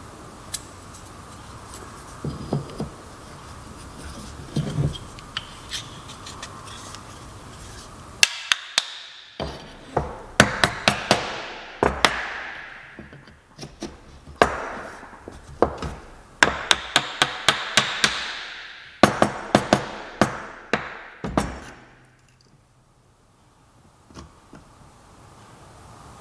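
Hammering on wood while working a wood joint: quick runs of sharp blows, several a second, in about five bursts with short pauses between them. A few soft handling knocks come before the hammering starts, about eight seconds in.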